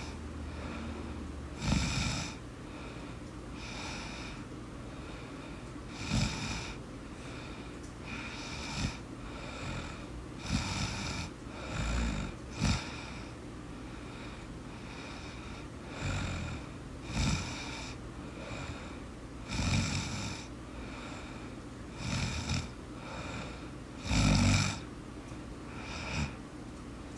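A sleeping person snoring: rasping snores about every one to two seconds, uneven in strength, over a steady low hum.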